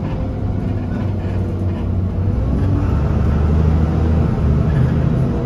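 Alexander Dennis Enviro300 single-deck bus's diesel engine idling while the bus stands, heard from inside the saloon as a steady low hum that grows a little louder about two seconds in.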